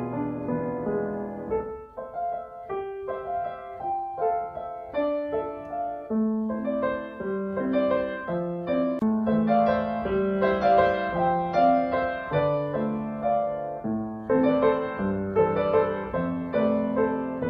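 Background piano music: a slow melody of sustained notes over a repeating accompaniment, briefly thinning out about two seconds in.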